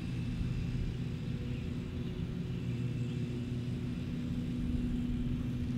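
Steady drone of a small electric RC plane's motor and propeller in flight far off, over low wind rumble on the microphone.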